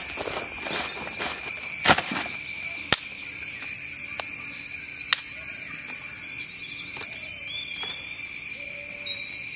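Dry sticks of firewood knocking together as they are laid down on leaf litter, with a few sharp wooden clacks about two, three and five seconds in and a rustle of dry leaves. Under it runs a steady high-pitched drone of forest insects.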